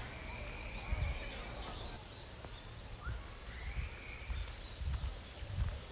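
Small birds chirping, with a short rising call a few seconds in, over outdoor ambience. Soft low thuds of footsteps on a dirt path mark the walker's stride and are the loudest sound.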